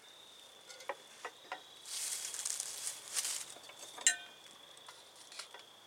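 A metal serving spoon clinking and scraping in a cast-iron Dutch oven as potatoes are dished out. There are a few light clicks, then a scraping rustle lasting about a second and a half, then a sharper ringing clink about four seconds in, all over a steady high-pitched tone.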